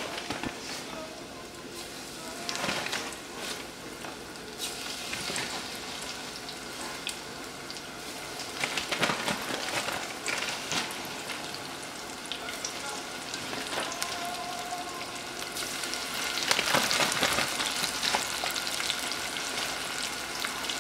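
Breaded broccoli florets deep-frying in hot oil in a saucepan: a steady sizzle full of crackles. It flares up louder a few times as more pieces are dropped in, around the middle and again near the end.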